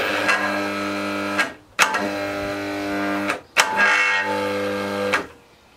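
Corded electric drill run in three bursts of about a second and a half each, a steady whine that starts and stops sharply with each trigger pull, its chuck driving a threaded rod pressed against a scooter wheel.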